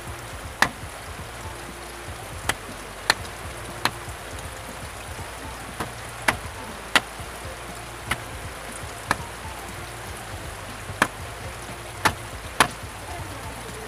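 Knife chopping chicken feet on a wooden chopping board: about a dozen sharp chops at uneven intervals. Underneath runs the steady splash of water pouring into a steel basin.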